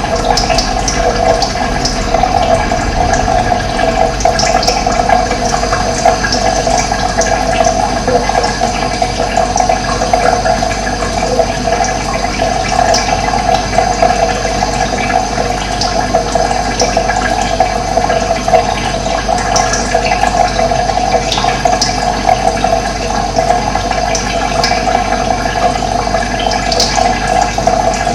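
Steady rush of running water, like a flowing stream, with short high bird chirps here and there.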